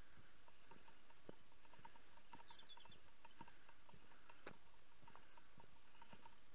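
Small bells jingling faintly in a steady rhythm, about four jingles a second, shaken by someone walking, with light footfalls on a paved path.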